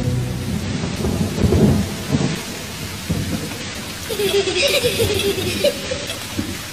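Steady hiss of rain with an uneven low rumble.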